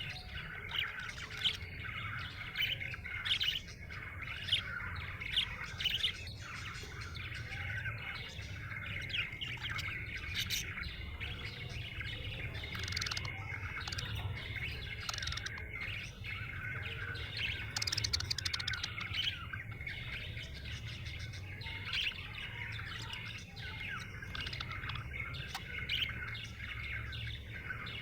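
Budgerigar chirping and warbling in a continuous, busy chatter of short notes, with a buzzier stretch about two-thirds of the way through, over a steady low hum.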